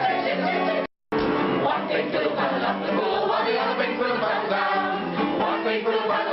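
Several voices singing together over instrumental backing, cut by a split-second dropout of sound about a second in.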